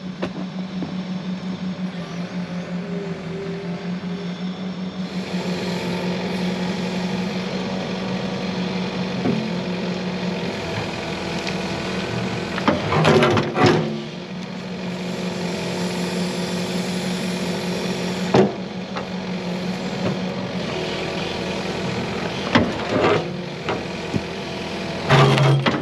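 Diesel engine of a CAT 308E mini excavator running steadily, with several sharp clanks of the machine working.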